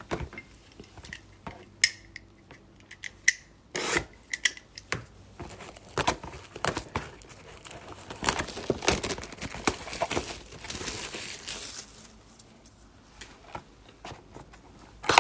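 Trading cards being handled: cards sliding and rubbing against each other, with irregular light clicks and taps and a longer stretch of rustling near the middle.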